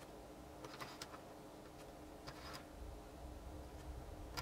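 Faint scratches and light ticks of a small hand tool marking lengths on coaxial cable laid along a steel ruler: a quick cluster of three about a second in and two more near the middle, over a low steady hum.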